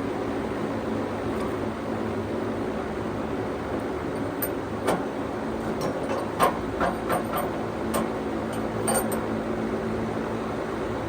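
Sawmill engine running steadily, with a scattering of sharp clicks and knocks in the middle of the stretch.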